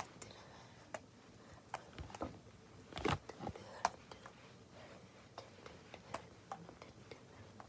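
Three stress balls being juggled by hand: irregular soft taps and pats as the balls land in the palms, the loudest about three seconds in.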